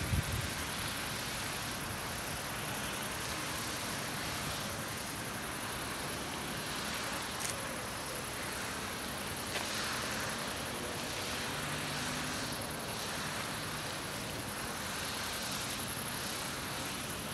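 Steady outdoor ambient background noise, an even hiss with no single source standing out, with two faint brief ticks about seven and a half and nine and a half seconds in.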